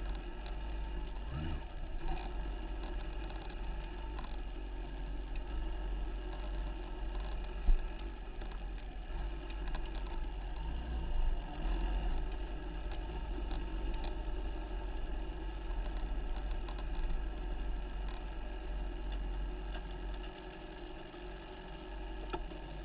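Motorbike engine running steadily, picked up by a handlebar-mounted camera, with a heavy low rumble underneath. A sharp knock about eight seconds in.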